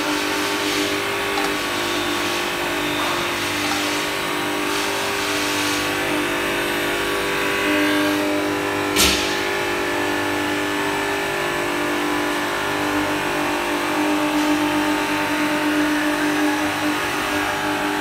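Glass washing machine running with a steady mechanical hum and a few steady tones, as a glass pane passes through on its roller conveyor. One sharp knock comes about halfway through.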